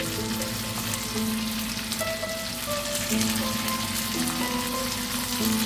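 Hairtail pieces frying in a pan, giving a steady sizzle, under background music of slow held notes.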